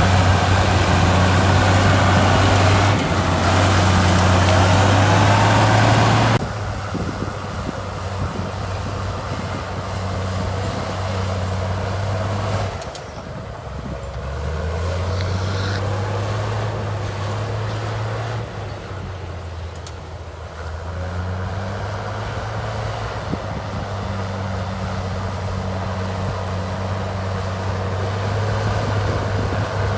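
Heavy diesel engine of earthmoving equipment running, under a loud rushing noise that cuts off suddenly about six seconds in. The engine note then drops and picks up again twice.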